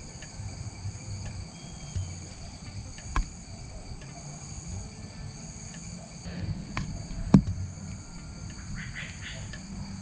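Steady, high-pitched chorus of insects trilling in the grass. Underneath is a low rumble, with a few sharp knocks, the loudest about seven seconds in.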